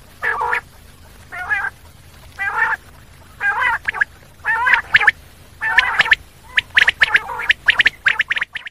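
Common quail calling: a run of short calls about once a second, breaking into quicker, sharper notes several a second over the last two seconds.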